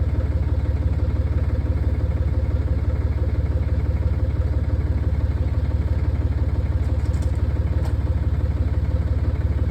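An engine idling, a steady low rumble with a fast, even pulse.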